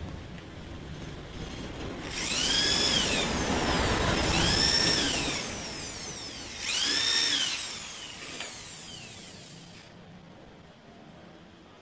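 Red corded electric hand drill boring into the end of a wooden board, run three times in quick succession, its motor whine rising and falling in pitch each time.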